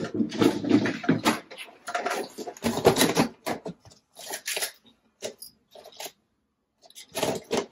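Clatter and rummaging in a clear plastic parts box, in irregular bursts for the first few seconds, quiet for a moment, then one more short burst near the end.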